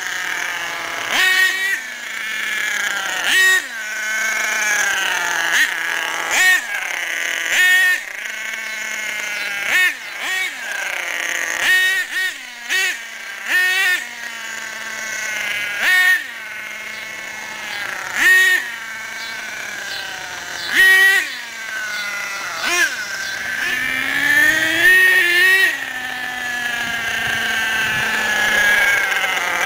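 HPI Savage X 4.6 nitro RC truck's small glow-fuel engine revving in repeated short throttle bursts, about every two seconds, pitch rising and falling and settling back toward idle between them, with one longer climbing run near the end. The engine is new and being broken in.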